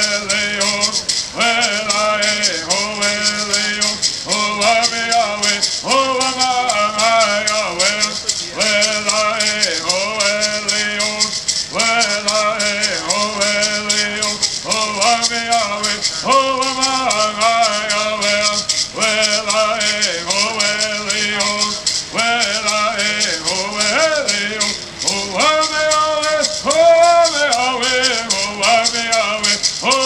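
Kumeyaay bird song: voices singing short, repeated phrases over a steady, constant shaking of gourd rattles.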